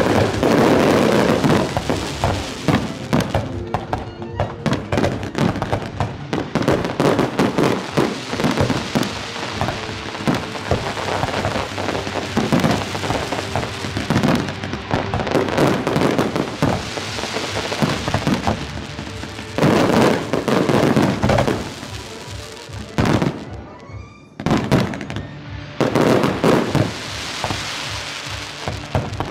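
Fireworks display: aerial shells bursting one after another amid dense crackling, with music playing underneath. The barrage eases into a brief lull a few seconds before the end, then the bursts pick up again.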